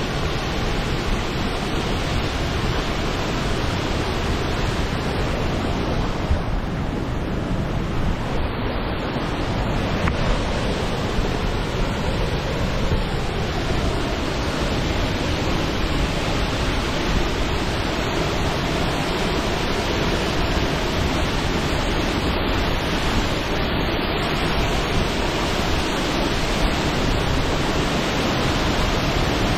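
A waterfall's water pouring down rock close by: a loud, steady rush.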